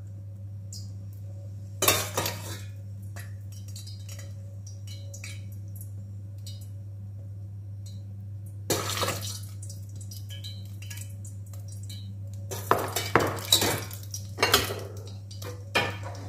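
Metal spoon clinking and scraping against ceramic plates and a pan while food and melted butter are spooned out: scattered clinks about 2 and 9 seconds in and a quick run of them near the end, over a steady low hum.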